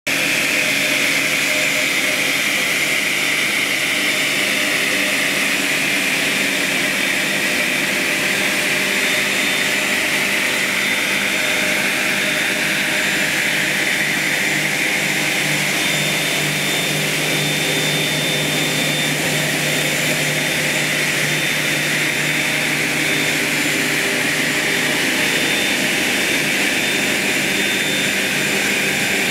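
Woodworking machinery running steadily in a joinery workshop: a continuous rushing, whining hiss that slowly wavers, over a steady low hum. This is typical of a dust-extraction system and a circular saw running idle.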